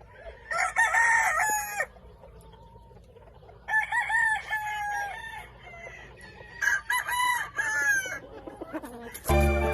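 Rooster crowing three times, each crow a drawn-out call of one to two seconds. Music starts just before the end.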